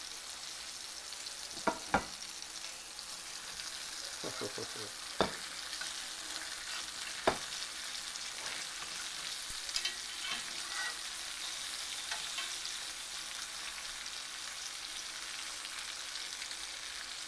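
Chicken breasts sizzling steadily in a hot cast iron skillet. A few sharp metallic clicks and a brief ring come from steel tongs striking the pan as the pieces are turned over.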